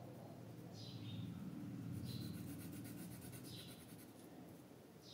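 Colored pencil scratching on paper as a claw is shaded in red with short back-and-forth strokes. A short high chirp that falls in pitch sounds four times, about every second and a half.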